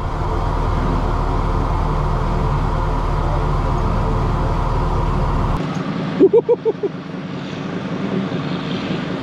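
Volkswagen Touareg TDI diesel engines running at a steady pitch while a Touareg climbs a steep muddy bank. About halfway through the drone changes abruptly to a quieter engine noise, with a brief burst of a voice just after.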